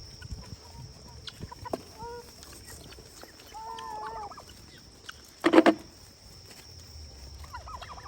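Chickens clucking among the feeding farm animals, with a loud, short, harsh burst about five and a half seconds in.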